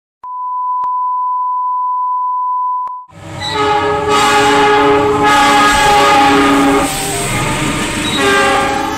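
A steady electronic beep for about three seconds, then a diesel locomotive's horn sounding a long multi-note chord over the rumble of the train, the chord shifting a few times.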